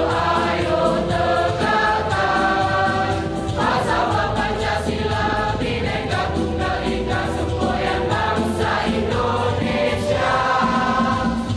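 A school choir singing in harmony, many voices together on long held notes that change every second or two.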